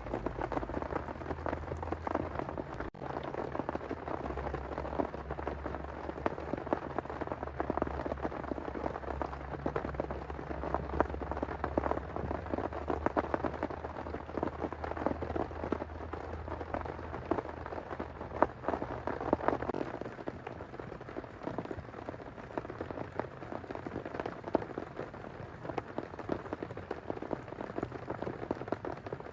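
Heavy rain falling steadily, a dense hiss of many close drop hits. A low rumble runs underneath and fades out about twenty seconds in.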